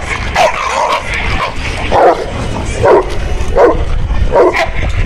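Guard dogs barking fiercely in a run of separate barks, about one a second, as they react to a trainer's bite sleeve in defence training.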